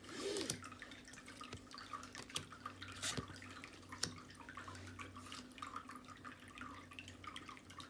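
Tarot cards handled one by one in a flip-through: soft scattered clicks and slides of card stock, with one sharper click about three seconds in.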